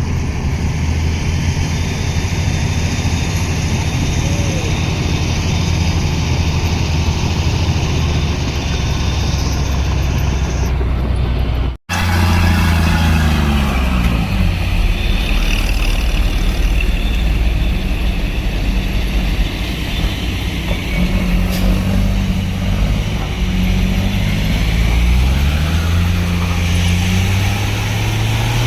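Dump truck diesel engines running. After a sudden cut about twelve seconds in, the engine's pitch rises and falls as it revs up and settles back.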